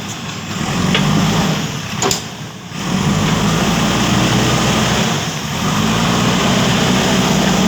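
JCB backhoe loader's diesel engine running steadily, dipping in level briefly about two seconds in before picking up again.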